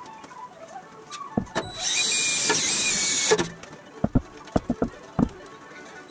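Cordless drill running for about a second and a half, boring through the aluminum body sheet with a steady high whine. Then a few short, sharp clicks and taps.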